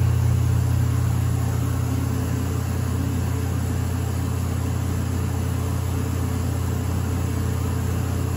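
Vacuum pump of a mechanical orchestrion running with a steady low hum, no music playing yet.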